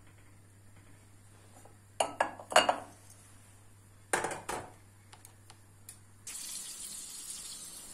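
A small metal pan clattering as it is picked up and set down, with a few sharp knocks about two seconds in and again about four seconds in. From about six seconds, a steady hiss of butter beginning to melt and sizzle in the pan.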